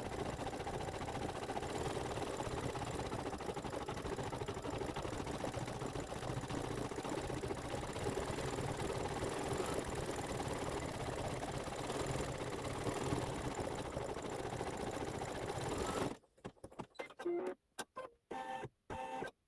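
Computerised embroidery machine stitching steadily at speed, then stopping abruptly about 16 s in, with a few short clicks and tones after it stops.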